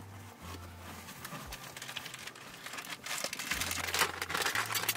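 Clear plastic bag crinkling and rustling as it is rummaged through by hand in a search for a can opener, louder and busier in the second half.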